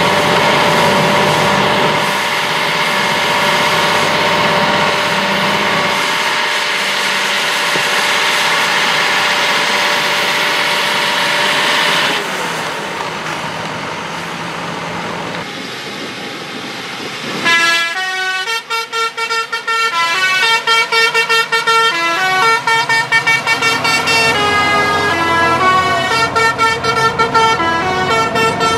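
A heavy tractor's diesel engine runs hard under load, then drops away. About two-thirds of the way in, a quick run of short pitched horn notes starts and keeps going, stepping up and down in a tune.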